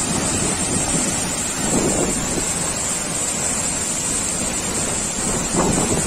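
Steady roar of falling water from a waterfall, with wind buffeting the microphone, gusting hardest about two seconds in and again near the end.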